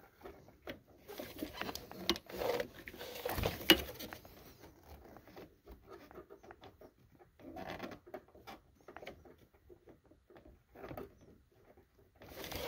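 Scattered small clicks and rustling of hands working a spring clip onto the clutch master cylinder's hydraulic line fitting, with one sharper click a little under four seconds in.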